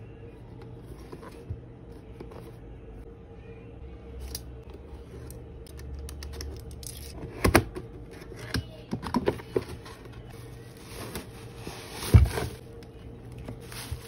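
Cardboard figure box handled and opened by hand: scrapes, rubs and sharp knocks, the loudest about halfway through and another just before the end. Near the end comes a rustle of plastic wrap. A faint steady hum sits underneath throughout.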